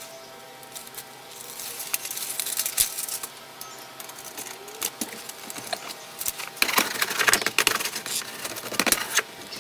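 Sheet-metal access-door frame being handled and fitted into an air handler's opening, with foil tape worked around it: clicks, scraping and crinkling, densest and loudest from about seven to nine seconds in.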